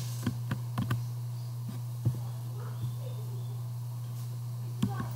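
Steady low hum with a few short clicks scattered through it, several in the first second and one near the end.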